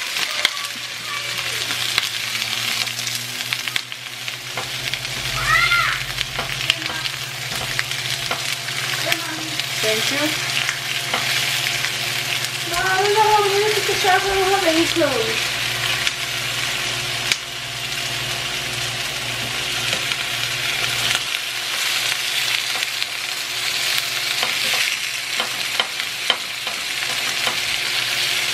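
Halved onions, whole tomatoes and garlic cloves sizzling steadily in a stainless steel skillet as they brown, with tongs turning them and clicking against the pan now and then.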